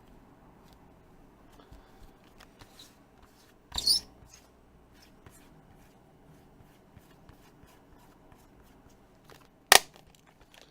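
Plastic tablet parts being handled and fitted together: faint ticks and rustling, a short scrape about four seconds in, and one sharp click near the end as the case snaps into place.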